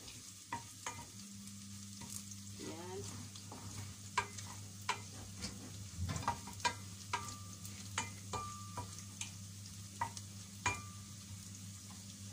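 Chopped garlic sizzling in hot oil in a stainless steel pan as it is sautéed, stirred with a wooden spoon that knocks and scrapes against the pan several times a second at irregular intervals. A low steady hum starts about a second in and runs under it.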